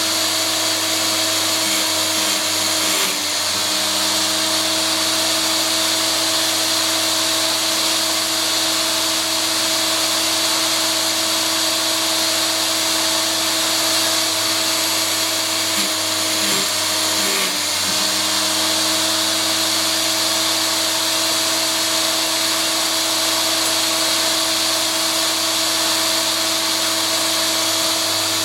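Power Fist electric chainsaw sharpener running, its small grinding wheel whining steadily with a hiss of grinding on the chain's cutters. The whine dips briefly in pitch a few seconds in and again just past halfway.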